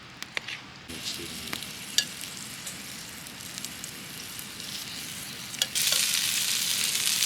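Meat sizzling on a hot grill for yakiniku, with light clicks of utensils against the plate. The sizzle starts about a second in and jumps much louder near the end.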